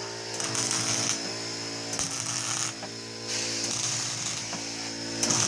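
An electric motor-driven machine running with a steady hum and mechanical whir. Its loudness swells and dips several times.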